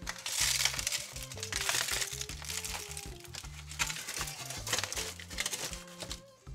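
Aluminum foil crinkling in several short bursts as racks of ribs are lifted and flipped on it, over background music with a steady bass line.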